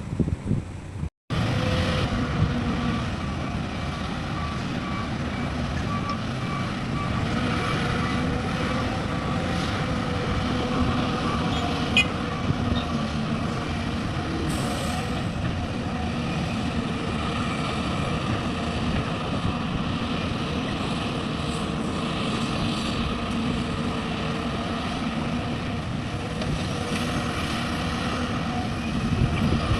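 Heavy diesel construction machinery running steadily, as an excavator loads a dump truck. For a few seconds in the first half there are faint, evenly spaced beeps.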